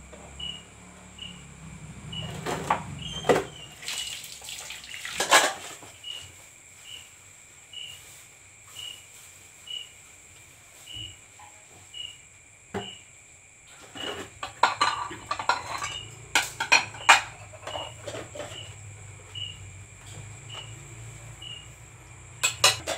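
Dishes being washed by hand: cups, plates and bowls clattering and knocking together in irregular bursts, in two main spells, a few seconds in and again past the middle. Crickets shrill steadily in the background, with a regular chirp about once a second.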